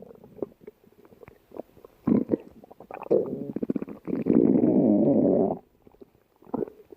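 A person's stomach growling loudly. Short scattered gurgles come first, then about three seconds in a rapid rattling run that turns into one long rumble of over a second, and a few short gurgles near the end.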